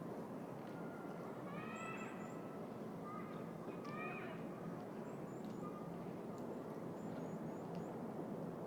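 City park ambience: a steady hum of distant traffic, with birds calling over it, two short harsh calls about 2 and 4 seconds in and a few small high chirps scattered through.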